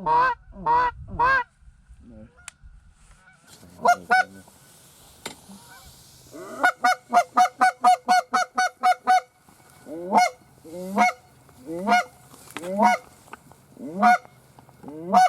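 Goose honking: a few honks near the start, then a quick run of about ten honks at roughly four a second, followed by single honks spaced about a second apart.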